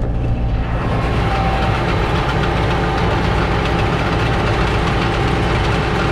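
John Deere 6110 tractor's diesel engine running with the John Deere 566 round baler turning while it wraps a finished bale in twine; the busier mechanical clatter comes in about half a second in and holds steady.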